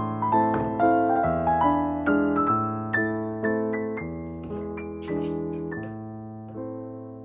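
Soft solo piano background music, slow notes and chords struck about twice a second and left to ring, fading down near the end.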